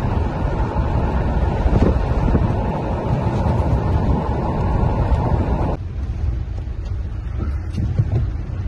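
Heavy wind buffeting the microphone, a dense rushing noise, which cuts off abruptly about six seconds in. After that comes the quieter, steady low rumble of a vehicle driving, heard from inside the cab.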